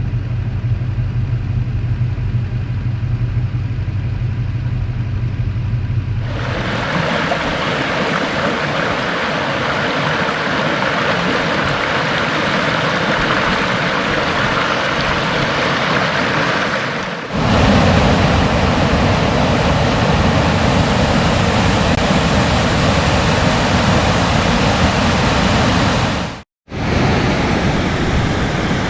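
Steady rushing of a waterfall, heard across several clips joined by abrupt cuts, with a short break near the end. The first few seconds hold only a low rumble.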